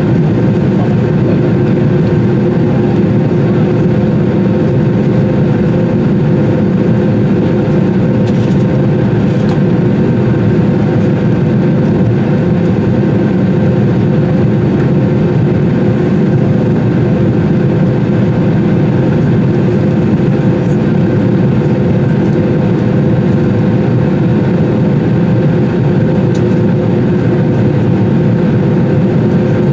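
Airbus A320 cabin noise heard from a window seat while the jet taxis: the engines at low taxi power make a steady, even hum with a few constant tones over it.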